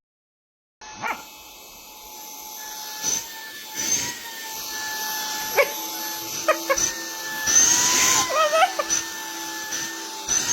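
A dog vocalising, with a wavering call about eight seconds in, over a steady background hum and scattered clicks.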